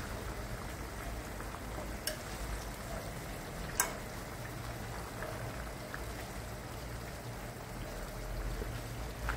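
Potato wedges, peppers and tomatoes sizzling in frying oil in a pan as they are turned with a wooden spoon and a fork. A sharp click of a utensil against the pan comes about two seconds in, and a louder one near four seconds.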